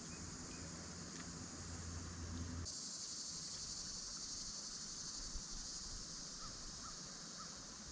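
Steady high-pitched chorus of insects. A low hum runs under it for the first two and a half seconds and stops abruptly, where the insect sound becomes louder.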